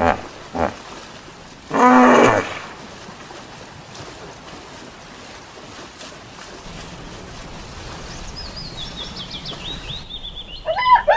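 Hippopotamus call: one short, loud, deep call about two seconds in, then a low steady background, with a run of high chirps near the end.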